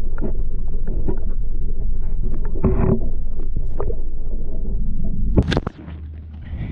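Muffled underwater sound inside a boat's livewell: a steady low rumble with scattered knocks and clicks. About five and a half seconds in there is a brief splash as the microphone comes up out of the water, and the sound turns much quieter.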